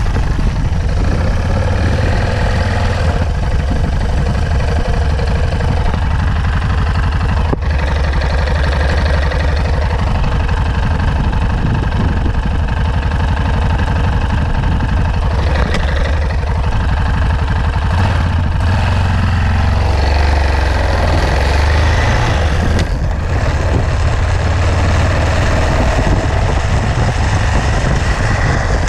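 Yamaha XT660Z Ténéré's single-cylinder engine running under way, with wind buffeting the microphone. A few short knocks are heard as gears are shifted, the gearbox clunk this bike makes on each change.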